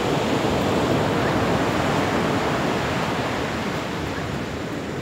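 Ocean surf breaking and washing up the beach, a steady rushing noise that eases off slightly near the end.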